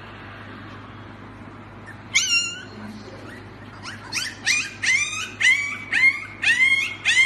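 Husky puppy crying in high-pitched yips: one cry about two seconds in, then a quick run of short squeaky yips, about two a second, to the end.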